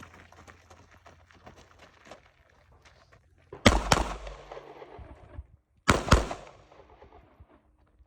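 Handgun fired four times in two quick pairs, the pairs a little over two seconds apart, each shot trailed by a short echo.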